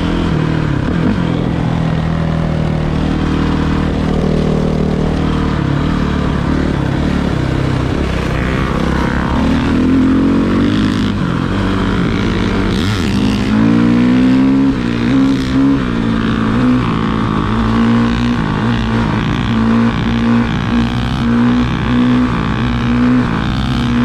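Dirt bike engine being ridden, its pitch rising and falling with the throttle. In the second half the revs surge and drop back about once a second.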